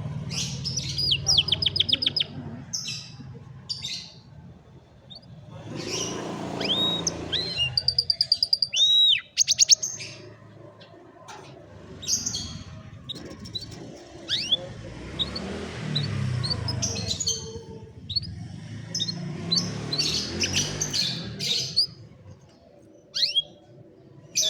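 Domestic canary singing in phrases: fast rattling trills and arched whistled notes, with short pauses between phrases.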